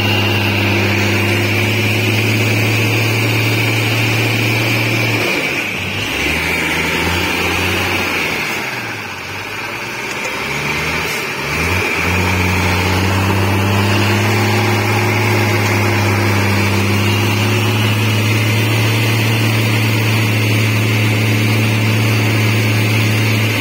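Old truck engine running hard under load on a steep climb, giving off black exhaust smoke. It holds a steady note, wavers up and down and dips in pitch and loudness from about five to twelve seconds in, then settles back to a steady note.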